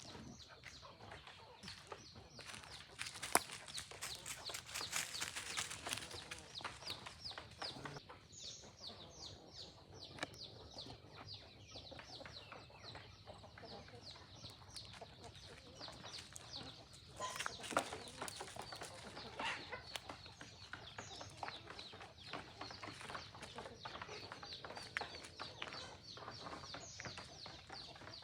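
A flock of free-range chickens clucking over a dense patter of rapid small clicks and ticks, with one sharper click a little over three seconds in.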